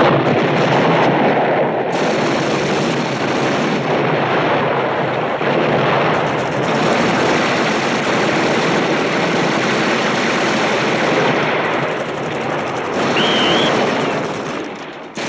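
An explosion goes off sharply, then several automatic rifles fire together in a dense, continuous volley. The volley thins out near the end.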